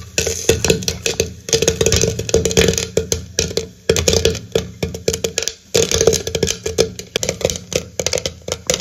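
Popcorn popping inside an aluminium pressure cooker, many quick irregular pops with kernels rattling against the metal pot and lid, over a steady low hum.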